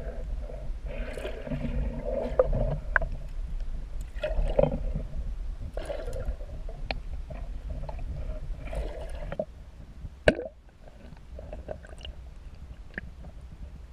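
Muffled water sloshing and gurgling heard through a submerged camera, with scattered sharp clicks and one loud knock about ten seconds in, after which the sound drops a little.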